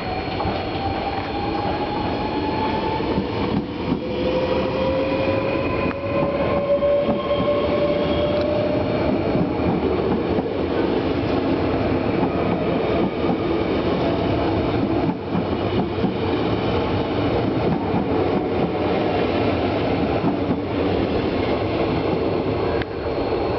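NS VIRM double-deck electric train accelerating away from the platform and running past. Over the first several seconds its traction motors whine and rise in pitch, over the steady rumble of the carriages' wheels on the rails.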